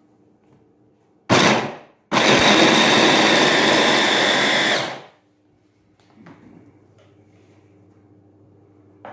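Electric hand blender with a chopper bowl attachment grinding boiled chickpeas: a short burst, then about three seconds of steady running before it stops.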